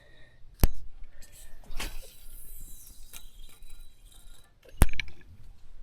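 Fishing rod and reel being cast. A sharp click, a swish with line running off and fading, then another sharp click about four seconds after the first.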